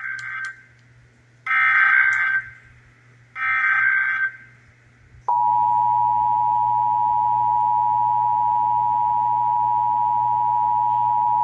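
Emergency Alert System test signal: three short bursts of SAME header data, a harsh electronic screech about a second each, then the steady two-tone EAS attention signal, which starts about five seconds in and holds unchanged.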